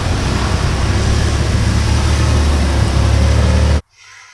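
Car engine running loud with a heavy, steady low rumble and road noise, cut off abruptly near the end.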